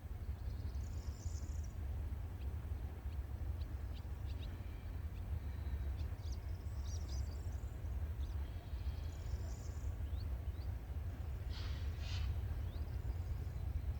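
Birds calling: short high chirps and rising calls scattered throughout, with two short harsh calls near the end, over a steady low rumble.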